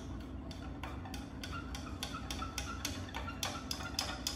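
Spoon stirring a drink in a tall glass, clinking against the glass in a steady rhythm of about four strokes a second, each with a short ring.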